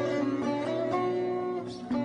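Instrumental music on a plucked string instrument, a slow line of single notes that ring on.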